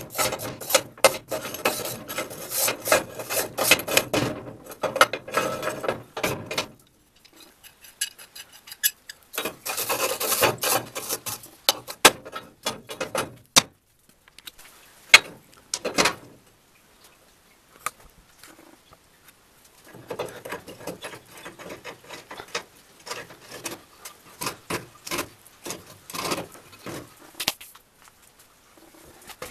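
Rapid scraping strokes of a metal hand tool against a rusty iron crank and disc, then a pause and another burst of scraping. Two sharp metal knocks follow near the middle, then a run of lighter metallic clicks and clatter as the iron parts are handled.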